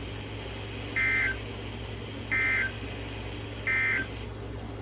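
Three short, identical bursts of Emergency Alert System end-of-message data tones (the AFSK 'NNNN' code), about a second apart, over a steady low hum and hiss. They signal the end of the broadcast alert message.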